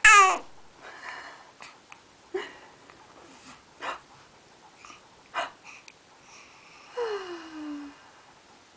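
A newborn baby hiccupping: a loud short squeal falling in pitch at the start, then short sharp hiccups about every second and a half. Near the end comes a longer voiced sound, falling in pitch, as the baby yawns.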